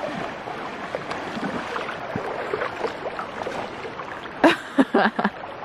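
Steady rush of a fast, shallow river flowing past, with a cluster of short, louder sharp sounds about four and a half seconds in.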